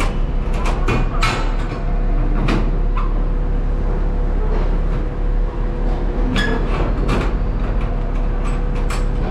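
Truck engines idling with a steady low hum. Over it come several sharp metallic clicks and knocks as the rear cargo doors of a box truck are handled at their latches.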